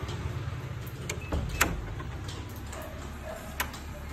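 Push-pull handle and latch of a Locpro fingerprint door lock on a wooden door clicking as the door is handled and shut: two sharp clicks about two seconds apart, over a steady low hum.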